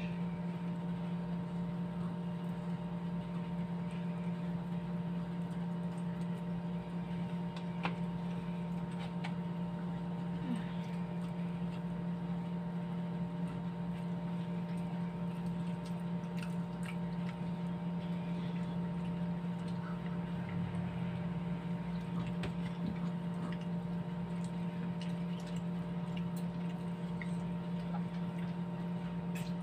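Steady electrical hum, several even tones sounding together, with faint scattered clicks and ticks from shrimp being peeled by hand and food handled at the table.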